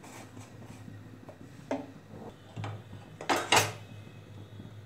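Metal cookware clinking: a few light clicks, then two sharper knocks in quick succession about three seconds in, over a low steady hum.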